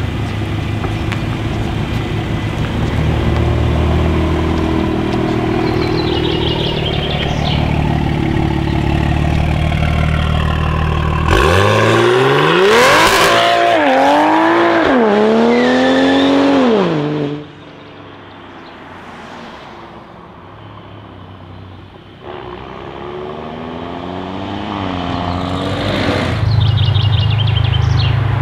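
Toyota Supra MK5's turbocharged straight-six with a loud Fi aftermarket exhaust. The engine runs steady at low revs, then about eleven seconds in the car launches hard into a wheelspinning burnout, its revs rising and falling through quick upshifts as it pulls away. After an abrupt cut the exhaust is faint, then builds as the car comes back and is loud again near the end.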